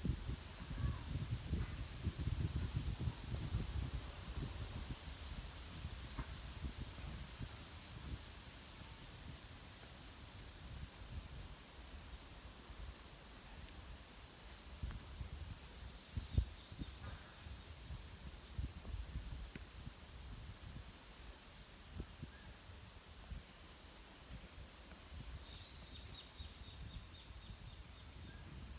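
Steady, high-pitched chorus of insects in the forest, shifting up in pitch about two seconds in and again about two-thirds of the way through, over a low, uneven rumble.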